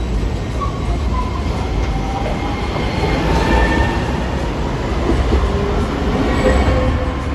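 Hiroshima Electric Railway Green Mover low-floor articulated tram running past close by, a steady rumble of steel wheels on the rails. It grows louder midway as the cars go by. Thin whining tones come and go over it.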